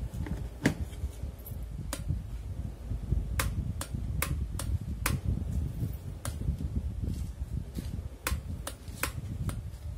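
Electric kettle's power switch clicking, about a dozen sharp clicks at uneven intervals over a steady low background rumble, as it is tried and fails to power on: the kettle is getting no power.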